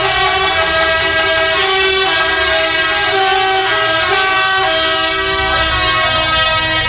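Truck horns sounding without a break, several held together at different pitches, over the low running of the lorries' diesel engines as they pass at walking pace.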